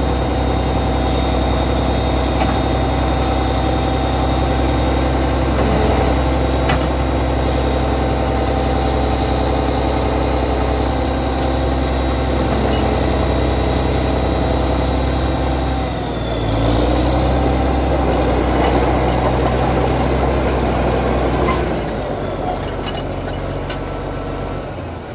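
Caterpillar D6C crawler dozer's diesel engine running steadily while the machine is driven and turned. About two-thirds of the way through, the engine note dips and shifts, then runs louder for several seconds before dropping off near the end.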